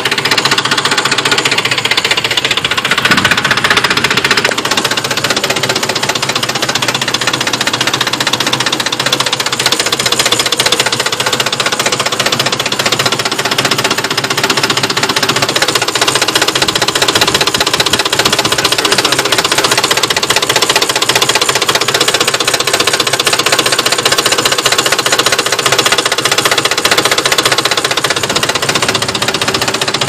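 2005 Ford F-150's 5.4-litre V8 idling with a rapid, steady knocking. The owner says the knock comes only at idle or very low RPM, goes away when accelerating, and has made the engine stall at idle.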